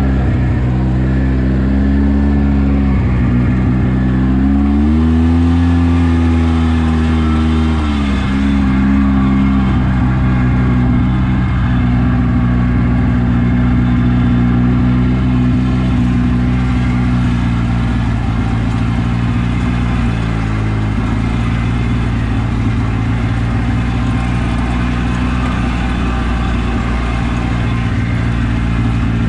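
Polaris RZR side-by-side's engine running steadily while driving a dirt trail. It revs up about five seconds in, settles back a few seconds later, and briefly dips again around twenty seconds.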